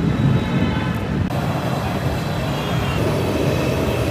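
Steady roadside traffic noise: passing vehicle engines and tyres, with a steadier mid-pitched drone joining about three seconds in.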